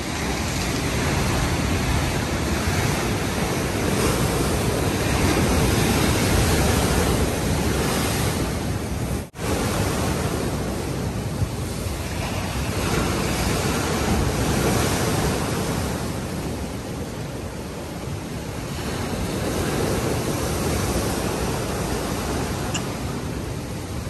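Rough sea at a king tide, waves breaking and washing against a concrete seawall in a continuous rushing surf that swells and eases every few seconds. The sound cuts out for a moment about nine seconds in.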